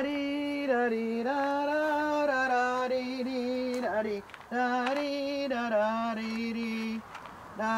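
A woman's voice singing a slow melody in long held notes, with short breaks about four seconds in and again near the end.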